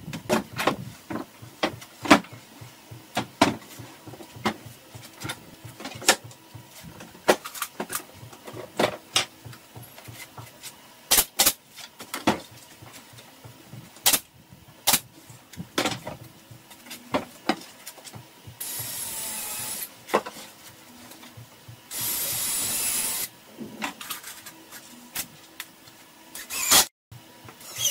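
Cordless drill driving screws into a melamine cabinet box in two runs of about a second and a half each, about two-thirds of the way through, amid many sharp knocks and clicks.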